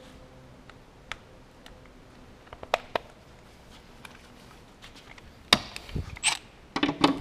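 Handling of tools against metal: a few scattered sharp clicks, then a quick cluster of louder clicks and knocks in the last two seconds as a cordless impact driver is brought up to a bolt.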